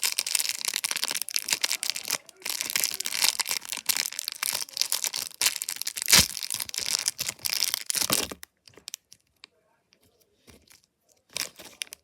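Packaging being crinkled and torn open by hand, a dense crackling that runs for about eight seconds with one sharp loud tear partway through, then a few small clicks and one short crinkle near the end.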